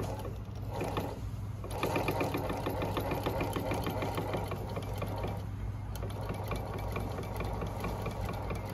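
Consew 1118-4 industrial blind hem stitch machine sewing a hem: a steady motor hum under a rapid, even ticking of the stitching mechanism.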